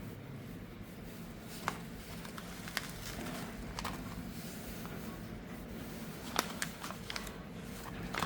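Scattered light clicks and taps, about six, at uneven intervals over a low steady hum.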